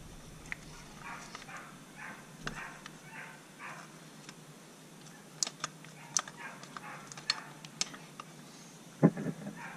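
Light metal clicks and taps from pistons being worked into the cylinder bores of a two-stroke outboard powerhead, with sharper clicks coming in a cluster around the middle. A string of faint muffled sounds, about two a second, runs through the first few seconds, and a louder knock comes near the end.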